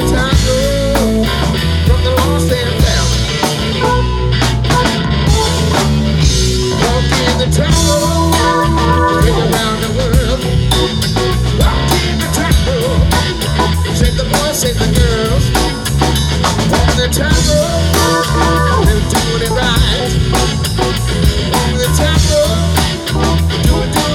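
A live rock band playing through a PA: electric guitars over a drum kit and keyboard, with a steady beat.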